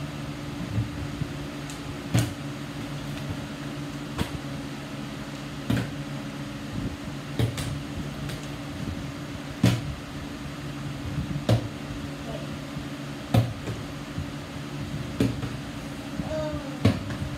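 A plastic water bottle being flipped again and again onto a table tennis table, landing with a sharp knock about every two seconds, over a steady low hum.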